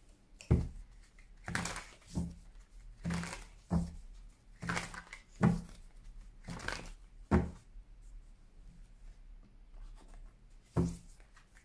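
A deck of paper cards shuffled by hand: a series of short, sharp shuffling bursts about a second apart for the first seven seconds or so, then a pause and one more burst near the end.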